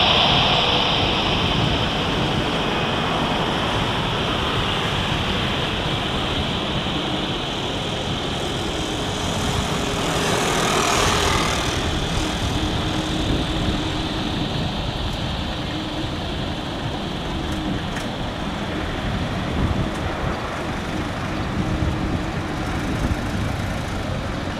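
Airbus A330 airliner jet engines: a steady rushing noise with a high whine that fades over the first several seconds, swelling briefly about ten seconds in as the jet powers down the runway on its takeoff roll.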